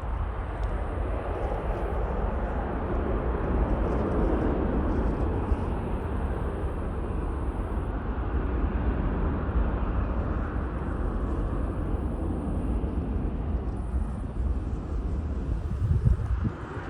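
Airbus A320-232 airliner with IAE V2500 turbofan engines passing on its landing, a steady jet rumble that swells about four seconds in and then slowly eases.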